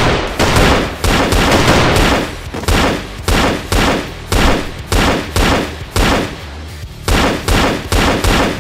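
Gunfire sound effects dubbed over a finger-gun shootout: a rapid volley of shots in the first couple of seconds, then single shots about every half second, over background music.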